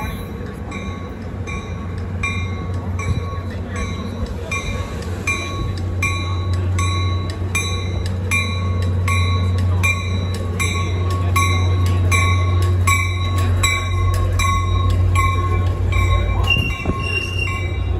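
A Caltrain commuter train pulls into the station. Its rumble grows steadily louder, and a train bell rings just under twice a second. A brief brake or wheel squeal comes near the end.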